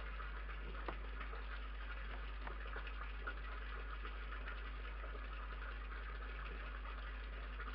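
Steady electrical hum and hiss from the camera's own audio pickup, with a couple of faint clicks.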